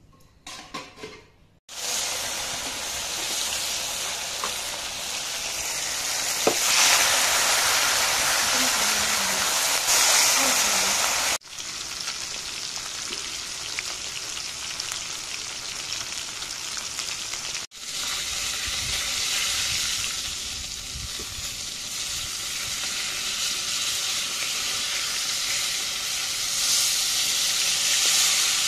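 Turmeric-coated fish pieces deep-frying in hot oil in an aluminium kadai, a steady sizzling hiss. It starts about two seconds in and drops out for an instant twice.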